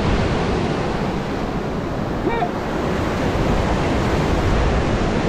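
Surf washing up the beach with wind buffeting the microphone, a steady rushing noise throughout; a brief voice call about two seconds in.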